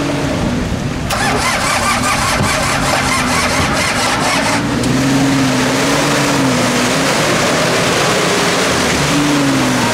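Off-road SUV engines running in mud and water, their pitch rising and falling as they rev. From about one to four and a half seconds in, a fast, even mechanical rattling runs over the engine sound.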